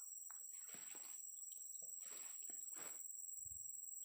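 Steady high-pitched drone of crickets or other insects, with a few faint rustles about one, two and three seconds in.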